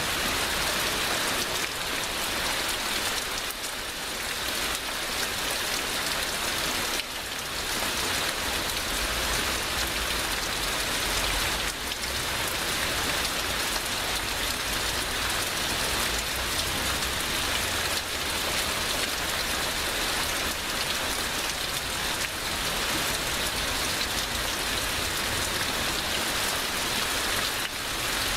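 Heavy rain falling steadily, a downpour of drops on surfaces.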